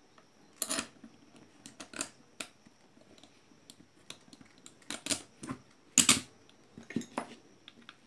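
A thin metal tool clicking and scraping against the end cover of a small single-phase induction motor as the motor is handled and reassembled. The sharp clicks are irregular and scattered, with the loudest about six seconds in.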